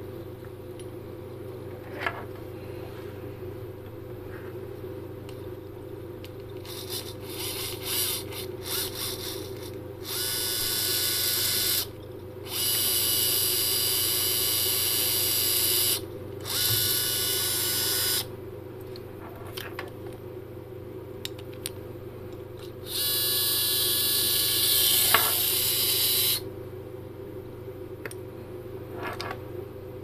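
DC motor and metal reduction gearbox of a high-torque 360-degree servo, driven from a radio transmitter stick. It whirs in a few short blips, then in several runs of two to four seconds that start and stop sharply, over a steady low hum.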